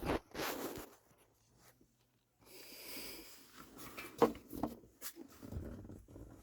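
Handling noises from cabin air filter work: rustling, then a series of sharp clicks and knocks, the loudest a little after four seconds in.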